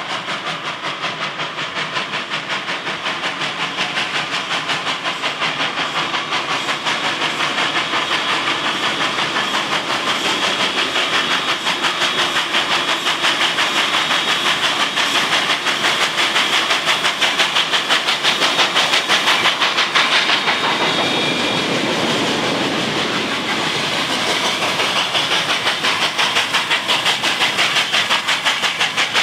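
SNCF 141 R Mikado two-cylinder steam locomotive working hard, its exhaust beating in a fast, even rhythm with a hiss of steam. A brief high steady tone sounds about twenty seconds in.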